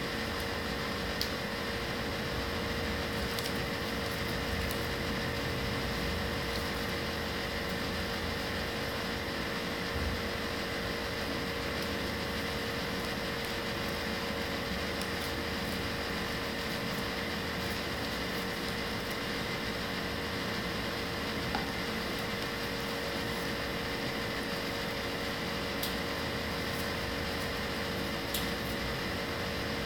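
Steady mechanical hum with a few level tones running through it, like a room appliance or fan, with a few faint clicks scattered through.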